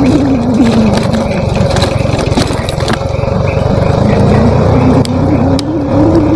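Motorcycle engine running while riding. Its note drops as it eases off in the first couple of seconds, stays low, then rises again near the end, with a few sharp knocks scattered through.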